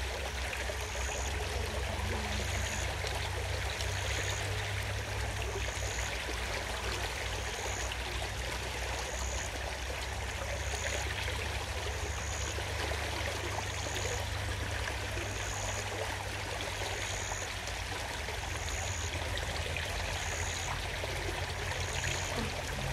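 River water running steadily. A short high-pitched call repeats about every second and a half.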